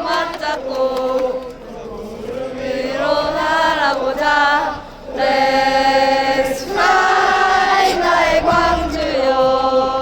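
Crowd of football supporters singing a chant together in unison, with long held notes and a short break about five seconds in.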